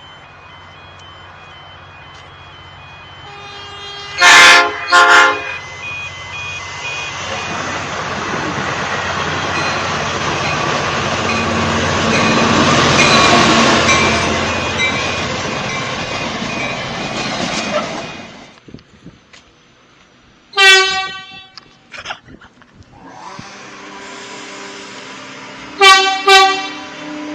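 Train horn sounding two short blasts, then the train passing with a steady rush of wheel and rail noise that builds and fades, cut off abruptly. A single short horn blast follows, and near the end two more short blasts.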